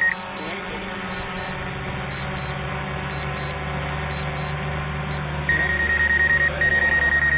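Electronic beeping over a steady low hum: pairs of short, high-pitched beeps about once a second, then from about five and a half seconds in longer, lower beep tones broken by short gaps.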